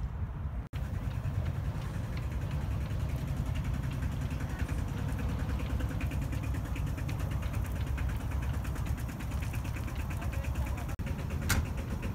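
Steady low rumble of road traffic, with a single sharp click near the end.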